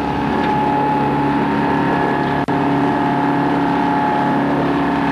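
A sailing yacht's auxiliary engine running steadily under way, with a brief click and dropout about halfway through.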